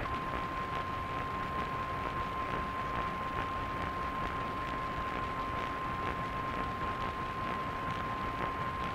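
NOAA Weather Radio 1050 Hz warning alarm tone: one steady pure tone held for about nine seconds, which cuts off near the end. It plays over constant radio static hiss.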